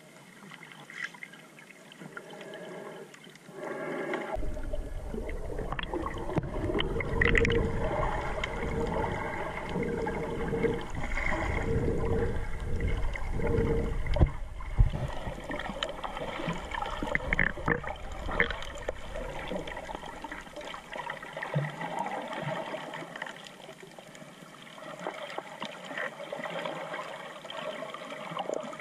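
Water sloshing and gurgling around an action camera's waterproof housing while snorkeling, with faint underwater hiss and clicks. From about four seconds in until about twenty seconds it grows louder and deeper, with knocks, as the camera rides just under the rippling surface.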